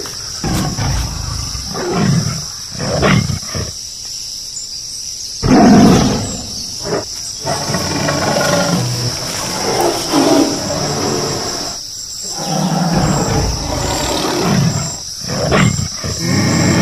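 Tiger roaring and growling several times, the loudest call about five and a half seconds in, over a steady high hiss.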